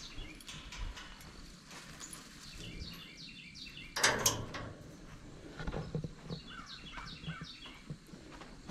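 Small birds chirping and singing repeatedly in the background. About four seconds in there is a brief, loud scraping noise.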